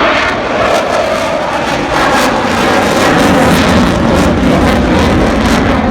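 A fixed-wing aircraft making a loud, low pass. Its engine noise swells as it comes in, then its pitch falls steadily as it goes by.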